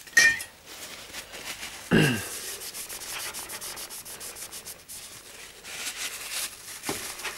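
Tissue paper being rubbed quickly back and forth over a CPU's metal heat spreader, a run of scratchy wiping strokes cleaning off old thermal paste. There is a sharp bump near the start and another about two seconds in.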